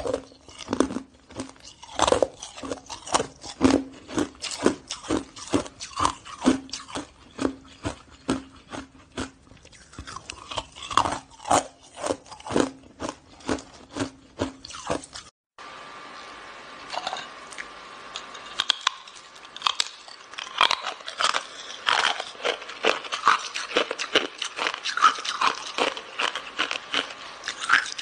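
Hard frozen ice being bitten and chewed: many sharp, irregular crunches. After a brief break about halfway through, the crunching comes thicker over a faint steady hum.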